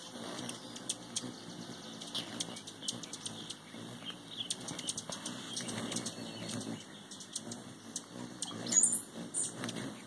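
Hummingbirds' wings humming as they hover and dart around a feeder, the hum swelling and fading, with many short high chip notes and a sharp squeaky call near nine seconds in.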